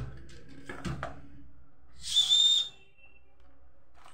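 Small plastic toy whistle blown once: a single short, high-pitched steady blast lasting under a second, about two seconds in.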